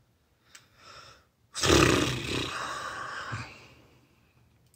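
A person's long, breathy exhale, starting about a second and a half in and fading away over about two seconds, after a faint short breath in about a second in.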